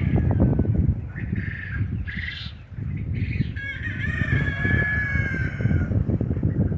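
Chickens on a farmyard: three short calls, then a rooster crowing once in one long drawn-out call about four seconds in. A steady low rumble of noise runs underneath.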